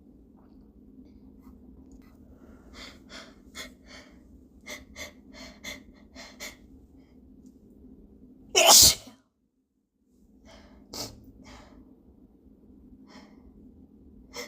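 A person's series of short, catching breaths building up to a sneeze, then one loud sneeze about nine seconds in, followed by a few quieter short breath sounds.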